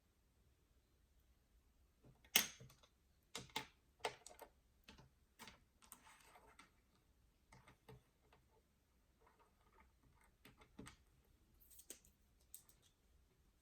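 Irregular light clicks and taps of someone working at a desk while studying, the sharpest about two seconds in, with a short rustle about six seconds in.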